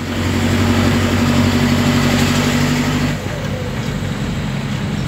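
Avia A75 truck's diesel engine running on the road, with the sound of a cracked exhaust. About three seconds in the engine note drops and goes lower.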